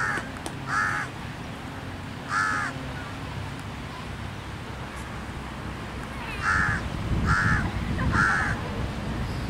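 A crow cawing: six short, harsh caws, three in the first two and a half seconds and three more close together from about six and a half seconds in.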